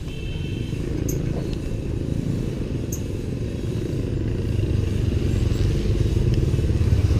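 Motorised tuk-tuk on the move: a steady low engine rumble that grows louder toward the end, with a few faint ticks over it.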